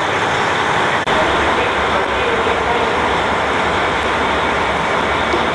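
JR Hokkaido KiHa 40 diesel railcar's engine running steadily up close, a loud even rumble and drone.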